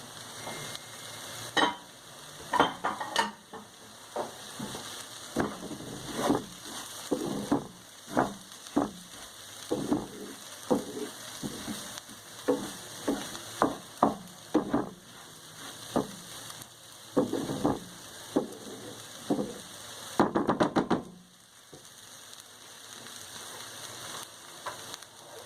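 Rice and red pepper sizzling in oil in a pan while being stirred, the utensil scraping and knocking against the pan about once a second. About 20 seconds in there is a quick flurry of scraping, then the sizzling goes on quieter.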